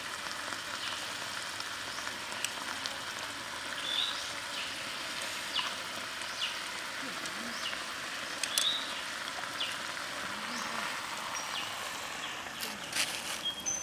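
Squid and vegetables sizzling and simmering in a small pan over a wood fire: a steady hiss with scattered pops and clicks.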